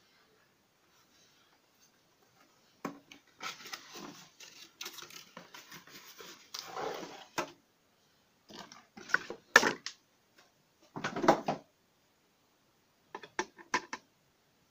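Cardboard packaging being opened and handled, rustling and scraping for several seconds, then a metal camping lantern knocked against the box and a wooden desk as it is taken out and set down, with a few quick sharp clicks near the end.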